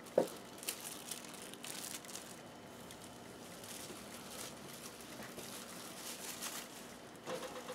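Plastic wrap crinkling faintly as it is peeled off and bunched up by hand, in a few soft rustles.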